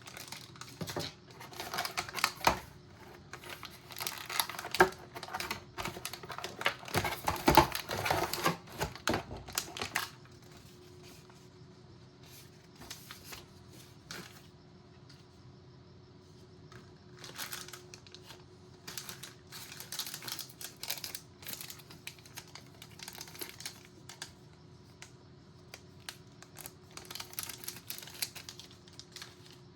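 A motherboard box being unpacked by hand: cardboard and packaging handled with many quick taps, clicks and crinkles. It is busiest and loudest for about the first ten seconds, then turns to sparser, quieter taps.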